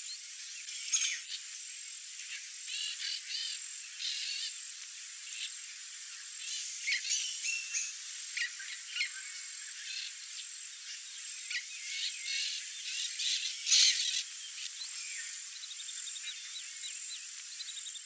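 Wild outdoor ambience: a steady high-pitched insect drone with scattered chirping calls of small animals over it. The loudest burst of calls comes about 14 seconds in, and a quick run of short repeated notes sounds near the end.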